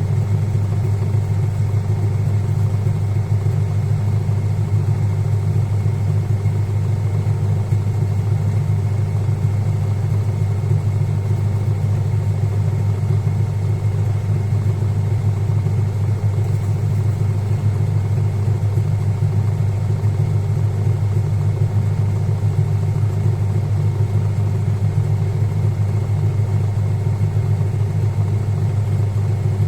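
Sanyo top-loading pulsator washing machine in its spin cycle: the motor and spinning tub give a steady low hum at constant speed.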